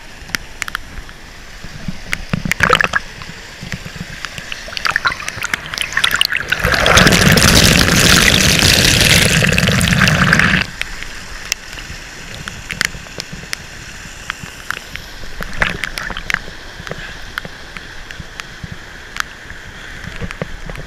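Stream water rushing over rock close to the microphone, steady with scattered clicks and knocks. About seven seconds in the rush grows much louder and fuller for some four seconds, then drops back to a lower steady flow.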